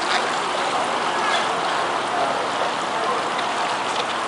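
Steady splashing and churning of water as a child kicks across a swimming pool on a kickboard.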